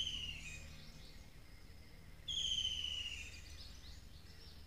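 A bird calling twice, each call a high whistled trill that slides down in pitch over about a second, over a faint low steady hum.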